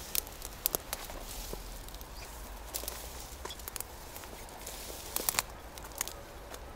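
Footsteps through grass and dry stems, with scattered crackles and rustles and a small cluster of them about five seconds in.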